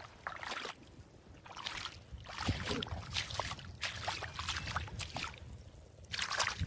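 Shallow seawater splashing and sloshing over sand in a run of irregular short bursts, as someone moves about in the water.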